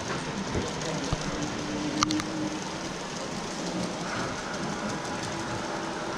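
Model train running on an exhibition layout, a steady running noise, with one sharp click about two seconds in.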